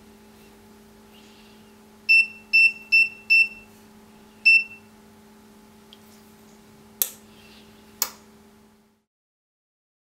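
APC-KP2W wireless gate keypad beeping as keys are pressed: four quick beeps, then a fifth after a short pause, matching the default PIN code 2222 followed by #. Two sharp clicks follow about a second apart, over a faint steady hum.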